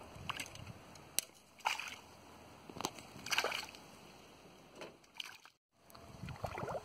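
Water lapping and sloshing in short, irregular splashes, with a brief break a little before the end.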